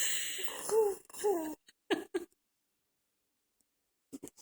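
Baby girl babbling and cooing: a breathy sound, then a few short voiced calls that fall in pitch in the first two seconds.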